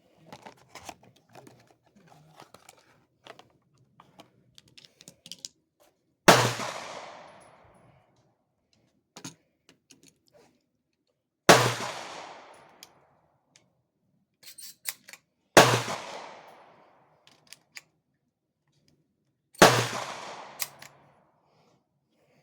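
A Remington 870 20-gauge pump-action shotgun fired four times, a few seconds apart, each blast trailing off in a long echo. Between shots there are lighter clicks and clacks of the gun being handled and the pump action worked.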